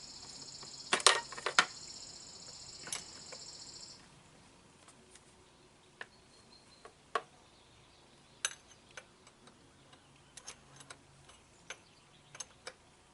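Scattered metallic clicks and light knocks of hand tools and carburetor parts being fitted and bolted onto an outboard motor, with a cluster of sharper knocks about a second in. A steady high-pitched hiss stops about four seconds in.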